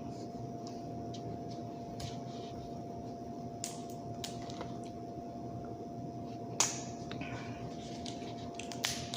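Sounds of eating seafood by hand: scattered small clicks and wet smacks, one sharper click about two-thirds of the way in, over a steady background hum.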